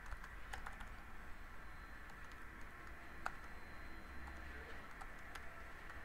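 Faint keystrokes on a computer keyboard, single taps at uneven intervals as a word is typed slowly.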